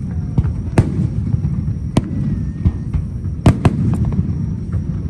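Large fireworks display: aerial shells bursting with sharp bangs over a continuous low rumble. There are four loud reports, two of them in quick succession about three and a half seconds in, with fainter pops between.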